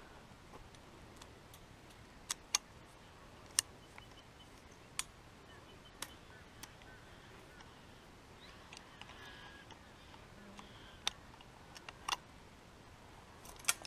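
Hand-operated chain fence wire strainer being levered to tension fence wire: sharp metallic clicks, irregularly spaced, about a dozen in all.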